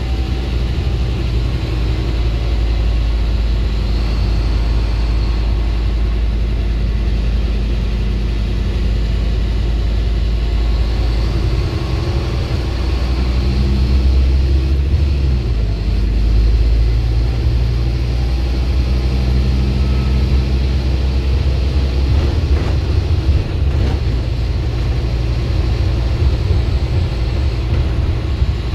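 Scania single-deck bus's diesel engine running as the bus drives along, heard from inside the passenger saloon together with road and body noise. The engine note rises and falls a few times as it works through the gears.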